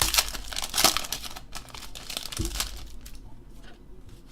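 Foil trading-card pack wrapper crinkling and tearing as it is ripped open, loudest in the first second and again about two and a half seconds in, then softer handling.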